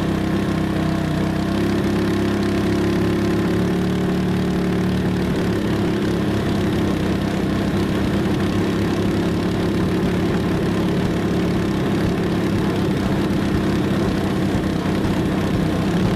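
Engines of a large radio-controlled B-17 Flying Fortress model idling steadily on the ground.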